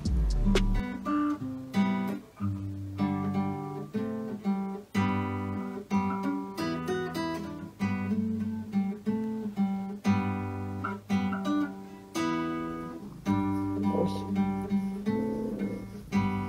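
Acoustic guitar music: a steady run of plucked notes and strummed chords.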